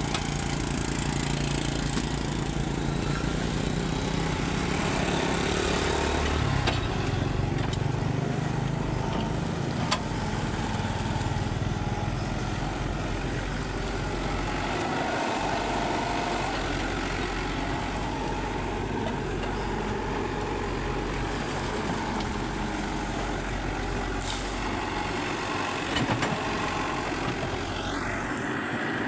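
Hydraulic excavator's diesel engine running steadily, its note lifting for a few seconds about six seconds in, with a couple of sharp knocks along the way.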